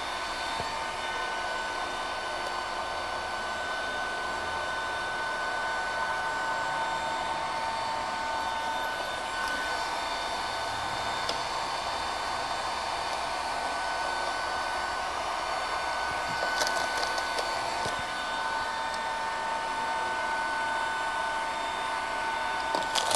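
Heat gun running steadily, a fan whine with two steady tones over a rushing hiss, used to heat vinyl wrap film into a fuel-door recess. A few light crackles around two-thirds through.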